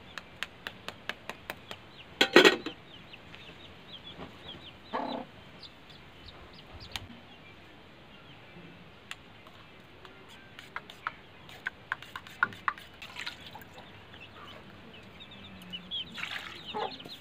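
An eggshell tapped quickly and repeatedly to crack it, then a louder clatter about two seconds in, followed by scattered light knocks of steel cups and bowls. Birds chirp and cluck in the background.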